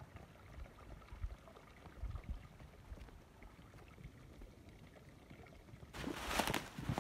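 Quiet outdoor background with a few low thumps. About six seconds in, loud crunching and crackling starts as someone walks through dry brush and snow.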